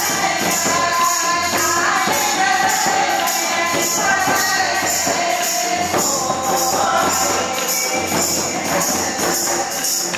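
Live Adivasi dance music from Jharkhand: mandar barrel drums beaten in a steady rhythm, a bright regular beat above them, and voices singing.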